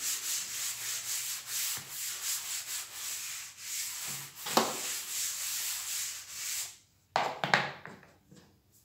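A duster rubbing chalk off a chalkboard in quick back-and-forth strokes. The rubbing stops about seven seconds in, and a couple of short, louder strokes follow.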